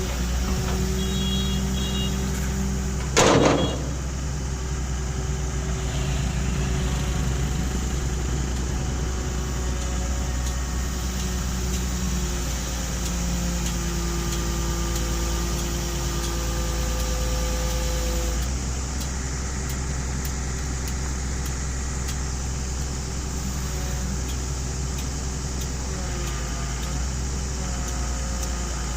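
Excavator engine running steadily, with faint tones in the drone that shift now and then. One short loud bang comes about three seconds in.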